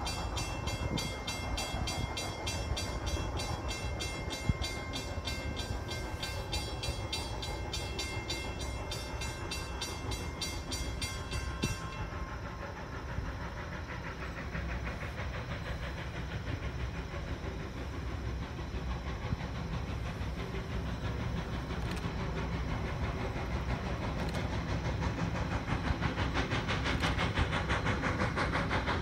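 A fast, even-ringing bell, likely the grade-crossing bell, sounds for about the first twelve seconds and cuts off abruptly. Then New Hope & Ivyland's 2-8-0 steam locomotive 40 is heard approaching, its exhaust chuffing and growing steadily louder.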